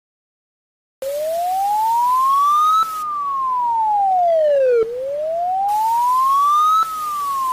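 Wailing warning siren, the up-and-down civil-defence alarm tone that Poland uses as its public warning signal. A single clean tone starts about a second in and sweeps slowly up and back down, about four seconds per rise and fall.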